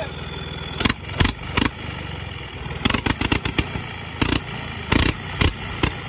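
Tractor engine running steadily with a cloth held over its upright exhaust pipe, making the silencer give a faint high whistle that slides slowly down in pitch. About a dozen sharp, irregular puffs or knocks break through the engine sound.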